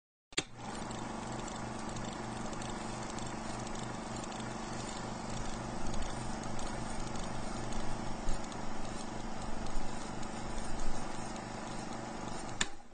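Old film projector sound effect: a steady mechanical whir and clatter with hiss and a regular low pulsing a few times a second, with louder pops and crackles in the second half. It starts and cuts off abruptly, each time with a click.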